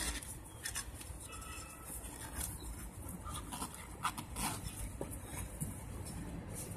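Faint rubbing and a few light clicks as the rubber bead of a walk-behind mower tyre is pushed by gloved hands onto the wheel rim, around a newly fitted inner tube.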